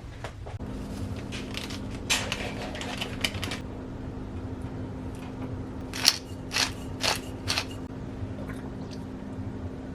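Sharp clicks and knocks of kitchen work, in a cluster about two seconds in and another about six seconds in, over a steady low hum that starts just after the beginning.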